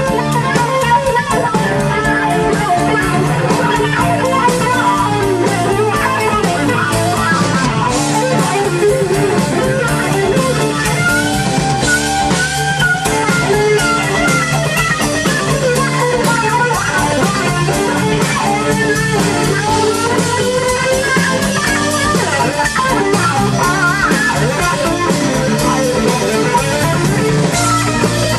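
Live blues-rock band playing an instrumental passage: electric guitar leads with notes that bend up and down, over a steady bass line.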